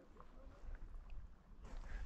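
Quiet background with a faint, steady low rumble.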